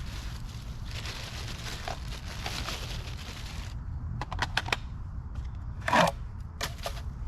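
Rustling and handling noises of gear being moved, then a few sharp clicks and a brief louder scrape about six seconds in; no chainsaw engine is running.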